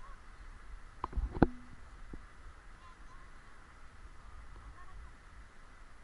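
Wind rumbling on an action camera's microphone over a steady outdoor hiss, with a few sharp knocks about a second in, the last and loudest followed by a short low hum.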